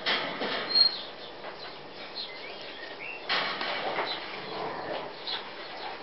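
Four-week-old puppies giving a few short, high squeaks and chirps while they play, amid bursts of rustling and scuffling.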